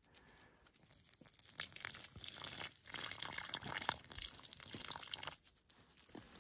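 Dark, dirty diesel pouring in a thin stream out of an old spin-on fuel filter and pattering and dripping onto snow, with crackly handling noise, for about five seconds before it fades.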